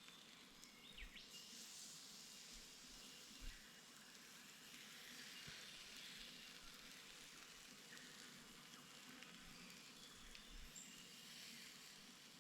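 Lamb steaks sizzling faintly over a campfire's coals, a soft steady hiss, with a light knock about three and a half seconds in.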